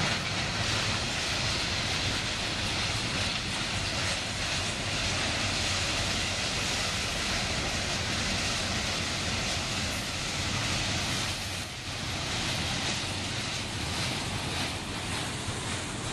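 Freight cars of a passing train rolling by: a steady rumble and rush of steel wheels on the rails, with a brief drop in level about twelve seconds in.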